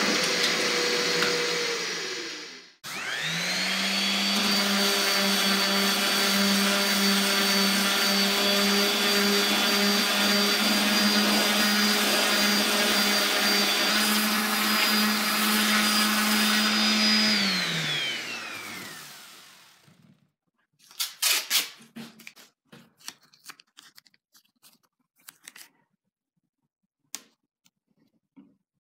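A bandsaw running and winding down. Then an electric random orbital sander starts up, runs steadily on the hickory ax handle and spins down after about 14 seconds. Near the end comes a series of short strokes of sandpaper rubbed by hand along the wood.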